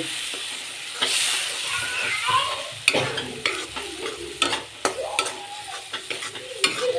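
A spatula stirring wet spice masala in hot oil in a metal kadai: the masala sizzles, with sharp clicks and scrapes of the spatula against the pan coming thick and fast from about three seconds in. The sound is the masala frying just after the wet spice paste has gone in.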